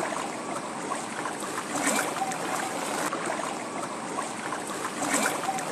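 Steady rushing storm noise of wind and water, with no clear single event standing out.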